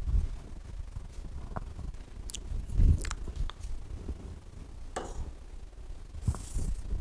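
A stylus tapping and scraping on the glass of an interactive whiteboard screen: scattered light taps, a dull thump about three seconds in, and a short scratchy stroke near the end.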